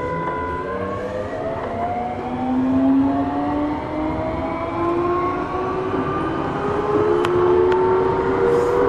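Eidan 6000 series electric train accelerating: its motor whine climbs steadily in pitch as several tones rising together over the running noise. Two sharp clicks come near the end.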